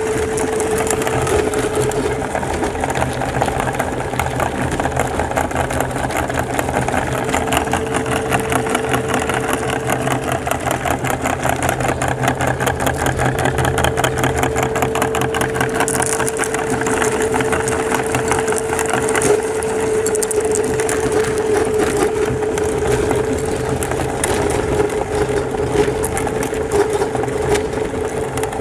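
Electric meat grinder running with a steady motor hum while crushing hard mint candies, a dense, continuous crunching and crackling over the motor.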